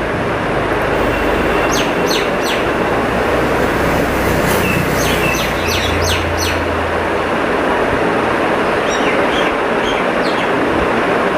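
Birds chirping in short, high, falling calls that come in several small clusters, over a loud, steady rushing noise.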